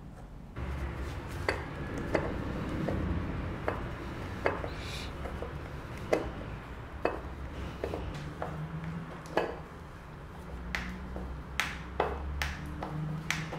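Screwdriver clinking and clicking against screws and a steel leg mounting plate as the screws are driven in: sharp metallic clicks about once a second, closer together near the end, over a low rumble.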